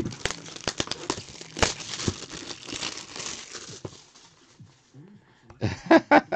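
Plastic wrapping crinkling and tearing as a trading-card box is unwrapped, with dense crackling for about four seconds, then a few louder knocks near the end as the box is handled.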